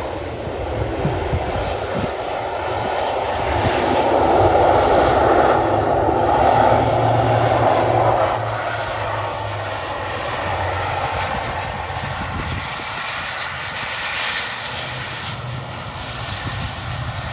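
ATR 42 twin-turboprop airliner's engines and propellers running as it rolls out on the runway after landing. The engine noise swells right at the start, is loudest for a few seconds midway, then eases to a steadier level.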